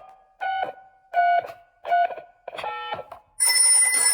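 Telephone keypad beeps as a number is dialled: four short pitched tones about two-thirds of a second apart. Then, near the end, the telephone starts ringing at the other end.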